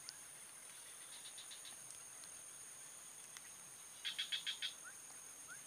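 Swamp wildlife ambience: a steady high insect drone, short rising chirps repeating about twice a second, and about four seconds in a quick run of six call notes, the loudest sound.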